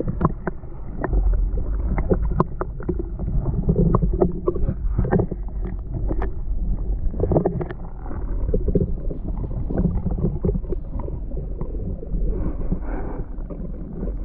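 Water sloshing and splashing around a camera held in shallow water while someone wades, with a steady low rumble and many irregular small knocks and clicks.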